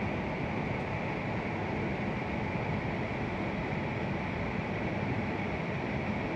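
Steady, even hum and rumble inside the passenger cabin of an E6 series Shinkansen car, with no separate knocks or changes.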